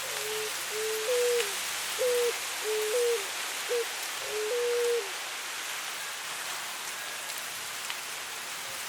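A West Peruvian dove (cuculí) cooing a phrase of about six clear notes over the first five seconds, several of them stepping up in pitch partway through. Behind it is a steady hiss of wind through dry grass.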